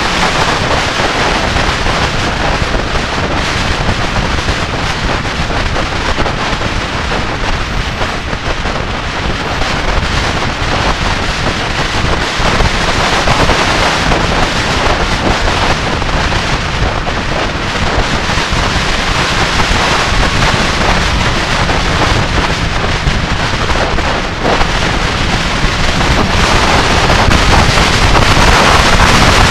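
Heavy wind rush on the microphone of a camera riding on a 1999 Yamaha YZF-R6 motorcycle at road speed, with the bike running underneath. It grows louder near the end as the bike speeds up.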